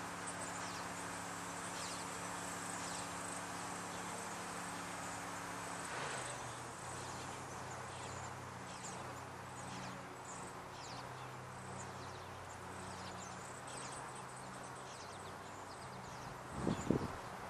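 Outdoor ambience: many short, thin, high chirps repeating irregularly over a steady low hum. Near the end comes a brief, louder low rumble.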